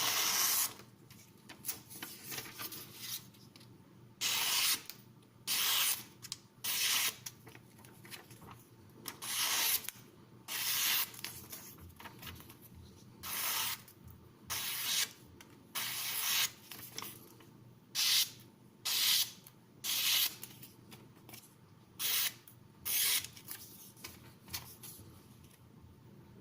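A freshly sharpened Cold Steel Broken Skull knife with a CTS XHP steel blade slicing through paper, a test of the new edge. It makes about fifteen short, hissing slicing strokes, roughly one a second with a few longer pauses.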